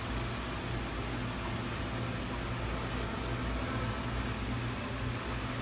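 Steady low hum with a faint hiss and no distinct events: the room tone of a pet store's aquarium aisle.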